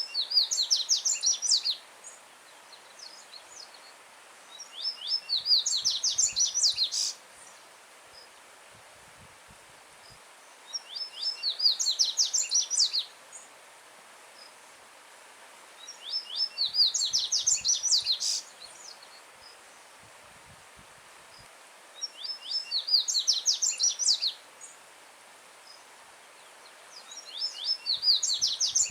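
Yellow-bellied seedeater (coleiro-baiano) singing: a loud phrase of quick, sharply repeated high notes lasting about two seconds, repeated about every five to six seconds, six times. A steady rush of running stream water lies faintly underneath.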